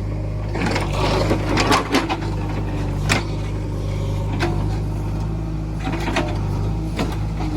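JCB 3DX backhoe loader's diesel engine running steadily as the machine is driven down, with several sharp metallic clanks and knocks from the machine scattered through it.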